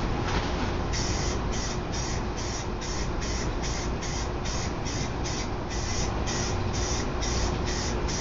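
Aerosol spray paint can hissing in short, evenly spaced bursts, about three a second, as paint is sprayed onto a car body, over a steady low hum.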